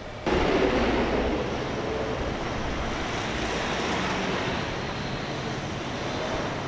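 Road traffic at a busy intersection: vehicles passing, a steady wash of engine and tyre noise that starts suddenly just after the start.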